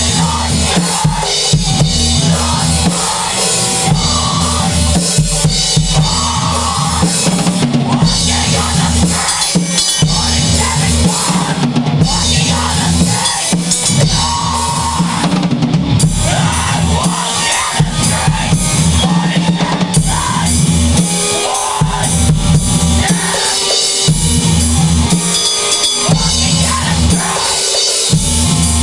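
Metal music track with a driving drum kit, bass drum and snare hits, playing without a break.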